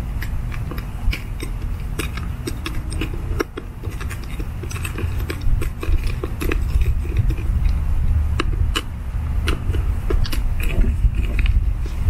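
Screws being backed out of the bonnet of a Hunter sprinkler valve: irregular small clicks and scrapes of tool on screw heads and plastic, over a steady low rumble.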